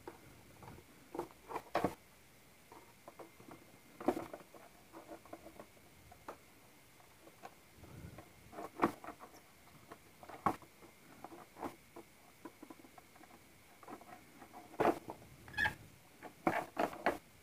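Hard plastic headlight parts of a Honda Vario 150, a new clear headlight lens and the front headlight cover, handled and pressed together by hand: scattered light clicks, knocks and scratchy rustles of plastic on plastic at irregular intervals.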